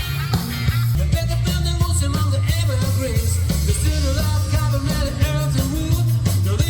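Loud rock music with bass, drums and a sung or melodic line.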